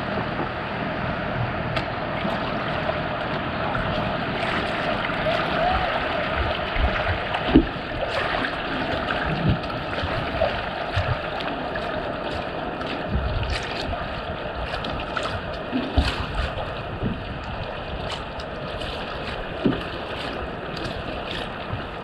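Steady rush of ocean surf, with a few dull thumps scattered through it.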